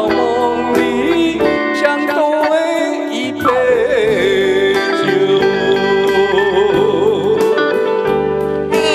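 Live band playing a slow ballad: sustained keyboard and guitar chords under a lead melody line that slides and wavers, holding one long note through the second half.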